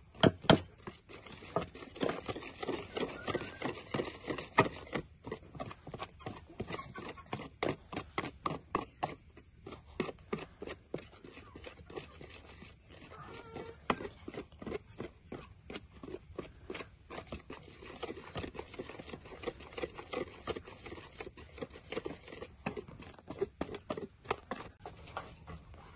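Food being prepared by hand with kitchen utensils: a run of quick, irregular taps, clicks and scrapes, several a second.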